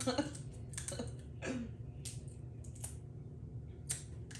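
Close-miked eating sounds: a string of irregular sharp clicks and smacks from a person eating seafood-boil food, over a faint steady low hum.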